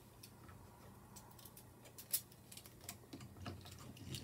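Small scattered clicks and taps of a metal bolt and nut being handled and fitted into a 3D-printed plastic winch frame, with one sharper click about two seconds in and quicker clicking near the end.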